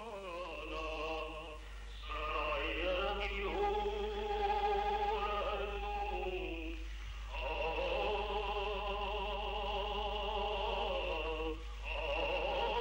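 A solo voice chanting a prayer-like song: long held notes that waver, sung in several phrases with short breaks between.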